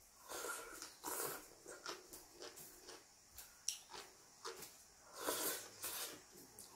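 Thin wheat noodles slurped from chopsticks in a few short, airy sucks, with chewing and small mouth clicks in between.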